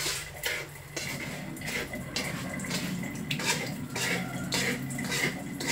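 A metal spoon scraping and stirring dry, crumbly food around a metal pan, with irregular rasping strokes about every half second.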